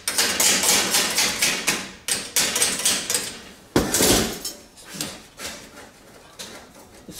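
Pliers working the aluminum fins and guard off the copper pipe of a baseboard heater element: quick runs of sharp metallic clicks and snaps, with one heavier knock near the middle and fewer, fainter clicks after it.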